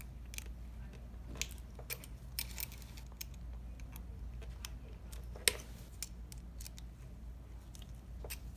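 Light metallic clicks and taps of a small Allen key working the spring screws inside a mobility scooter's handlebar-joint gear housing, with one sharper click about five and a half seconds in, over a steady low hum.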